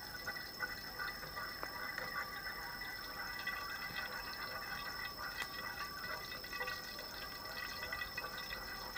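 Cooking oil heating in a frying pan on low heat, crackling faintly with small irregular pops.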